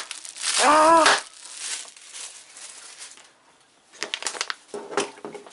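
Clear plastic packaging crinkling as it is handled, in irregular bursts of crackles, loudest in the last second and a half.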